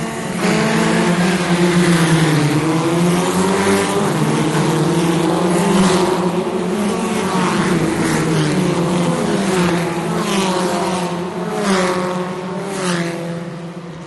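A pack of formula race cars launching off the start line: several engines rev hard from about half a second in, their pitch sweeping up and dropping back at each quick gear change, then fading away near the end.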